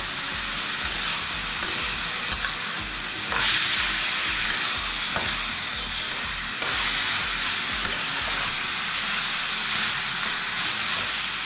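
Mashed banana stem and potato cubes sizzling in hot oil in a metal kadai, stirred and scraped with a flat metal spatula. A steady frying hiss runs through, with a few sharp clicks where the spatula strikes the pan.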